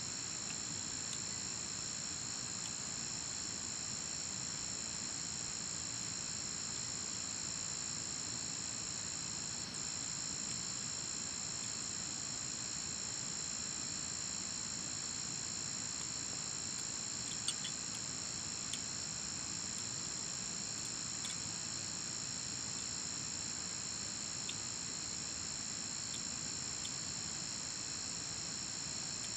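Steady chorus of evening insects, several high trills held at once without a break. A couple of short clicks come about two thirds of the way through.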